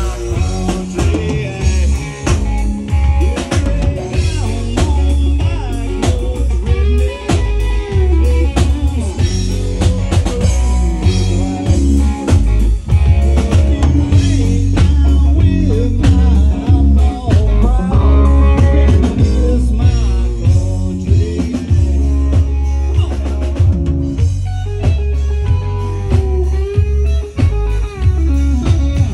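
Live band music: electric guitar, bass guitar and drum kit playing an instrumental section with a steady beat, no vocals.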